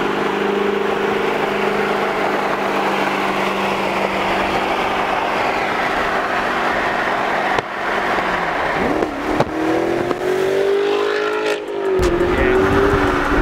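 Chevrolet Corvette C7 Grand Sport's 6.2-litre V8 through an AWE Touring Edition cat-back exhaust. A steady engine note holds for about seven seconds, then cuts abruptly to the engine revving, rising and falling in pitch, with another abrupt change near the end.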